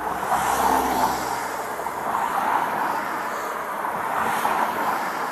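A person blowing a long, steady breath into a portable breath-alcohol tester, heard as an even rushing hiss.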